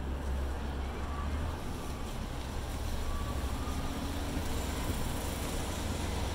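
Steady city street noise: a continuous low traffic rumble with a hiss over it and a few faint passing tones.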